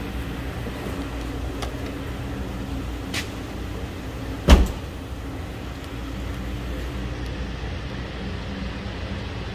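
2012 Suzuki SX4's 2.0-litre four-cylinder engine idling steadily, with a single sharp thump about four and a half seconds in.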